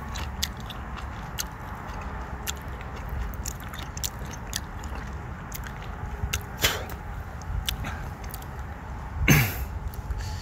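A person chewing a freshly picked Beni Temari cherry: irregular, scattered small clicks of the chewing. Near the end there is a short, louder throat sound.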